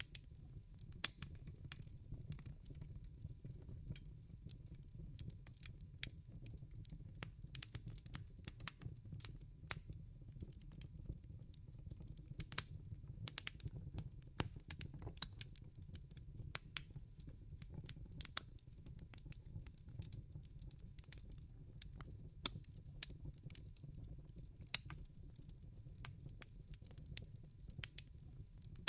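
Wood fire crackling: irregular sharp pops and snaps, several a second, over a low steady rumble of the burning logs.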